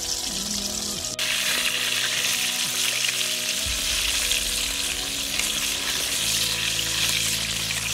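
Chicken pieces deep-frying in hot oil in a steel kadai, a steady dense sizzle that steps up louder about a second in, while the pieces are turned with a wire mesh skimmer.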